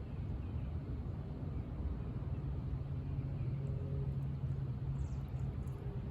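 A steady low motor hum over a low rumble, holding an even pitch.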